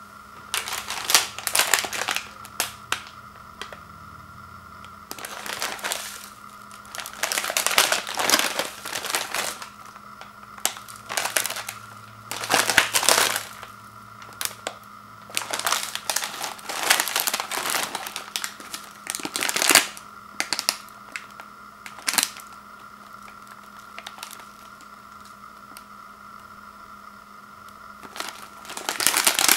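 The plastic wrapper of a Chips Ahoy! cookie package crinkling in irregular bursts as it is handled and turned over, with a quieter pause of several seconds near the end.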